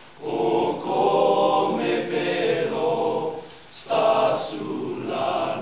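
Boys' choir singing in sung phrases, with a short gap just after the start and another about two-thirds of the way through.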